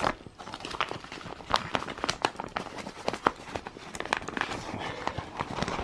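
Clear plastic bag crinkling as it is handled, in irregular sharp crackles.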